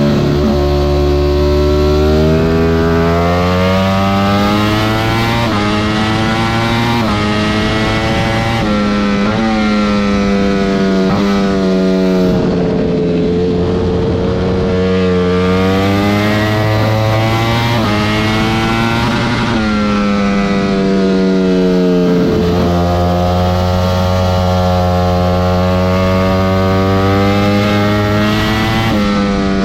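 Ducati Panigale V4 engine running through an Akrapovic slip-on exhaust, loud and revving. Its pitch climbs and then drops sharply, again and again.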